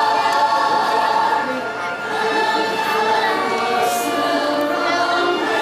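Holiday choral music: a choir singing long held notes with accompaniment.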